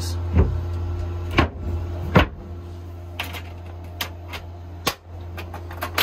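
Several knocks and clunks from a wooden-edged compartment lid being lowered and closed over a boat's battery bay, the loudest about two seconds in, followed by lighter ticks as it is handled. A steady low hum runs underneath.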